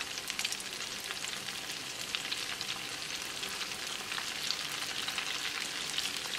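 Flour-coated chicken pieces deep-frying in hot oil in a wok: a steady sizzle with dense, fine crackling.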